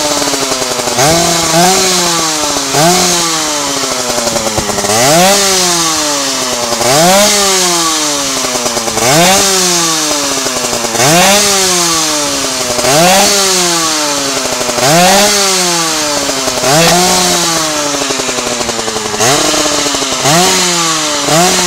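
Derbi Racer 50's two-stroke 50 cc racing engine being revved in repeated throttle blips, about one every two seconds: each a quick rise in pitch followed by a slower fall.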